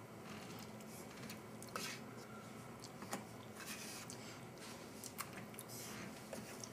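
Plastic spork scraping food from a stainless steel mess tray compartment, with a few faint scrapes and light clicks against the metal.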